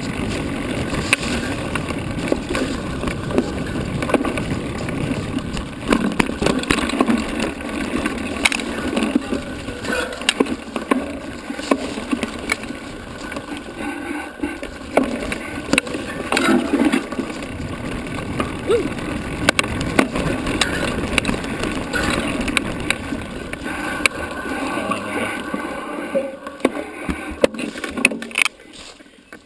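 Bicycle riding over a rough dirt trail: steady tyre rumble with frequent clicks and rattles from the bike, dropping off sharply near the end.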